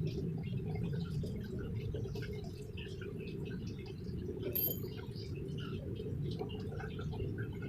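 Light handling clicks and a sharper metallic clink about four and a half seconds in, as a riflescope is set into its metal mounting rings, over a steady low hum.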